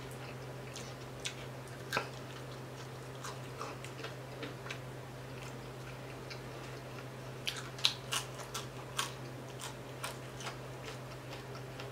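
Eating crispy whole fried tilapia: faint scattered crunches and clicks from chewing and from picking at the fried fish. They come in a quicker run about two-thirds of the way in, over a steady low hum.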